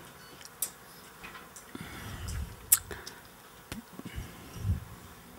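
Faint scattered clicks and soft rustles from paper sheets and a handheld microphone being handled, with a few dull low bumps between them.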